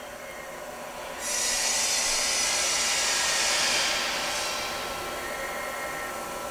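2003 Haas SL-10 CNC lathe running a program, with faint steady whine tones. About a second in, a loud hiss starts suddenly, holds for a few seconds, then eases off.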